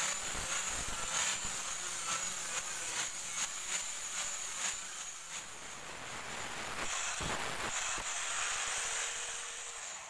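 Welding arc hissing steadily with faint crackles while full-welding a stainless-steel sheet seam, then cutting off suddenly as the arc stops.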